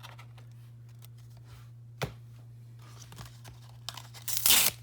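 Pokémon booster pack packaging being torn open in a short, loud rip near the end, after quiet handling with a sharp click about two seconds in. A steady low hum runs underneath.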